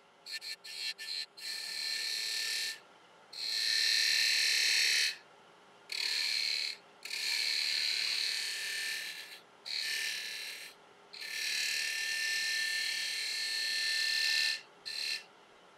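Hand-held turning tool cutting a bead into a spinning ash blank on a wood lathe: a few brief light touches, then about six cuts of a second to three seconds each, every one a high hissing shave with a whining edge, with short quiet pauses between as the tool is lifted.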